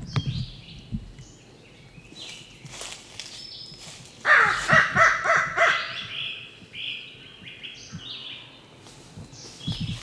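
A quick run of loud, harsh crow caws about four seconds in, lasting nearly two seconds: a turkey hunter's crow locator call, used to make a gobbler shock-gobble. Songbirds chirp faintly, and there are a few footsteps in dry leaves near the start.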